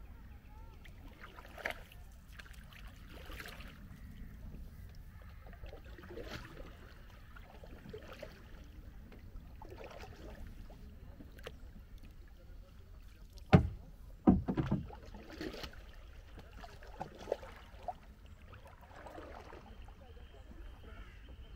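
Kayak paddle strokes dipping and splashing in calm river water, roughly one every one and a half to two seconds. Two loud knocks come a little past halfway.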